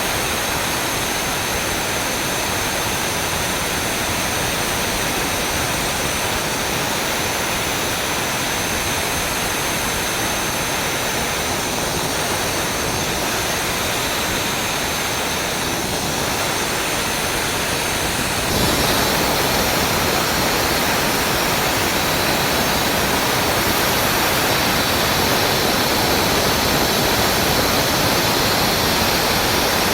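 Atlas Copco GA 18 kW VSD rotary screw air compressor running: a steady, loud rushing noise with a thin high whine on top. About two-thirds of the way through it steps up and stays louder.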